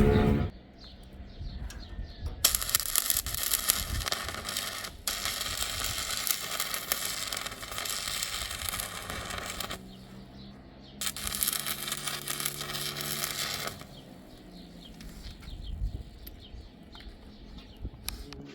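A steady hiss in two long spells, one of about seven seconds starting two seconds in and one of about three seconds starting eleven seconds in.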